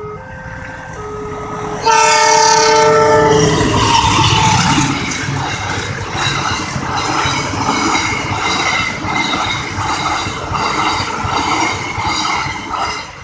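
A level-crossing warning siren with a Multec TC module sounds its alternating two-note tone. About two seconds in, a train horn blasts loudly and drops in pitch as the locomotive goes by. The train then passes, its wheels clacking in a steady rhythm over the rail joints, until near the end.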